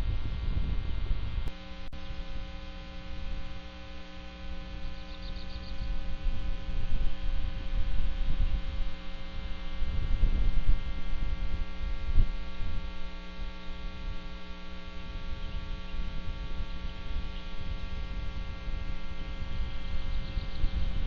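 Steady electrical mains hum on the nest camera's audio, a stack of many fixed tones, over a low, uneven rumble that swells and fades.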